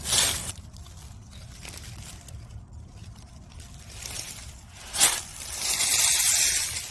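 Rustling and brushing of dry leaves and undergrowth. There is a short burst at the start, a sharp brush about five seconds in, and a longer stretch of rustling near the end.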